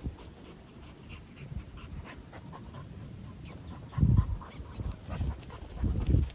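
An animal breathing close to the microphone: small clicking sounds, then two loud, heavy breaths, about four and six seconds in.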